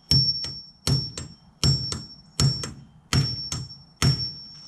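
Hammer blows on a metal tool clamped onto copper propane tubing, about a dozen strikes, mostly in quick pairs, each leaving a high metallic ring.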